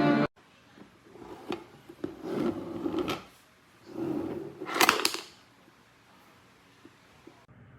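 Handling noise from what is most likely the plastic bento box: a few sharp clicks and knocks with bursts of scraping or rubbing, the loudest cluster of clicks about five seconds in, as if lids or latches are worked. The music cuts off at the start.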